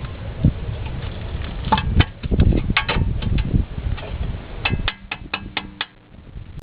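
Hand tools at work on the truck's front axle assembly: irregular metal knocks and clanks, then a quick even run of about five sharp clicks about five seconds in.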